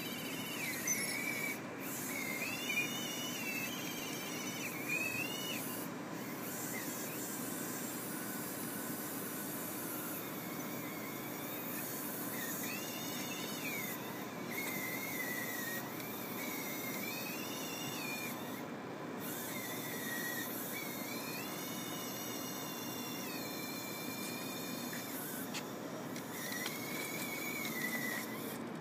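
Electric drive motors of a small tracked robot whining in repeated spurts of a second or two as it is driven, each whine rising, holding and falling in pitch as the motors speed up and slow down.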